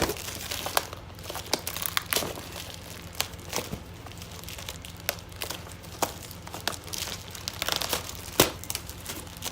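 Packaging being crinkled and torn open by hand as a parcel is unwrapped, with irregular crackles and sharp snaps.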